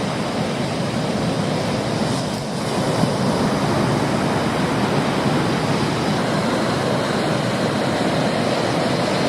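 Ocean surf breaking on a beach: a steady, loud rushing noise with no distinct individual waves.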